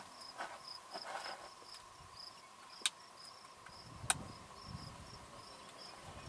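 Insect chirping steadily, short high chirps about three a second, with two sharp clicks about three and four seconds in.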